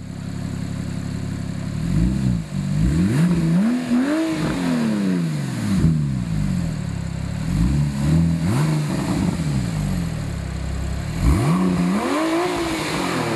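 Porsche 997.2 Turbo S twin-turbo 3.8-litre flat-six through a Fabspeed Supersport X-Pipe exhaust with sport headers and sport catalytic converters, idling and revved up several times, each rev climbing then falling back to idle. The biggest revs come about four seconds in and near the end.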